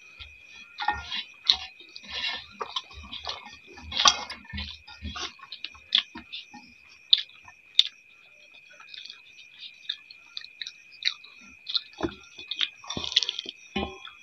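Two people eating rice by hand: chewing and mouth smacks, with frequent sharp clicks as fingers and rice scrape against metal plates. A steady faint high tone runs underneath.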